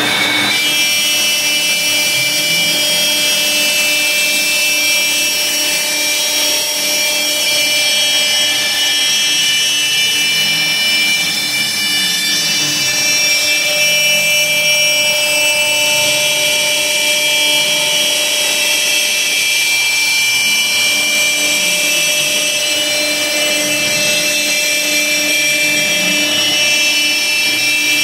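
Laguna Swift CNC router's spindle whining steadily as the bit cuts through half-inch plywood, with the rush of the dust collector drawing chips up the hose.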